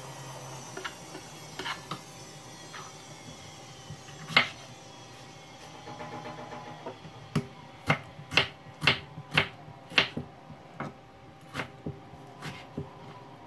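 A kitchen knife slicing tomatoes and knocking on the cutting board in sharp clicks. A few come spread out at first, with the loudest about four seconds in. Then comes a quick run of about two a second for a few seconds past the middle, and a few more near the end.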